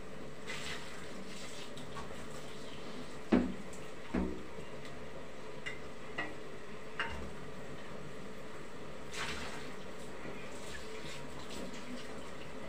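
A jar being washed by hand at a kitchen sink: water running and splashing, with a few clinks and knocks of the jar against the sink, the loudest about three seconds in.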